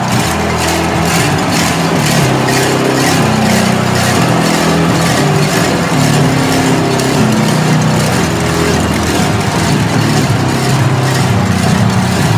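Loud stadium crowd noise with band music: held low brass-like notes that shift in blocks, over a steady beat of sharp high strikes about three a second.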